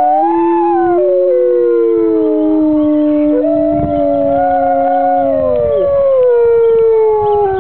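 A pack of wolves howling in chorus: at least three long howls overlap at different pitches. One rises and then slides down, a lower one holds steady for several seconds before dropping off, and another starts about three seconds in, climbs, and then sinks slowly.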